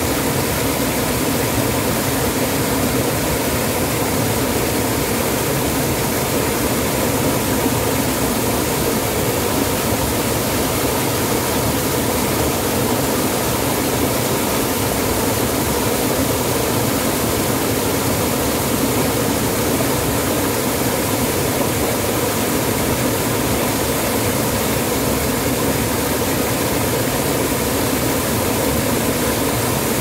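Small waterfall with water pouring over rock ledges into a pool: steady, loud rushing water.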